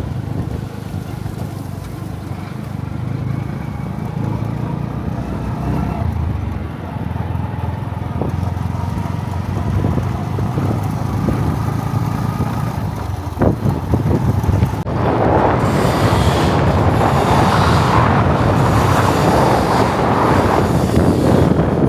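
A vehicle's engine running steadily on the move, with wind starting to rush over the microphone about two-thirds of the way in and then masking most of it.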